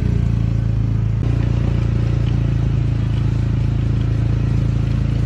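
A vehicle engine running steadily, loud and close, its note shifting slightly about a second in.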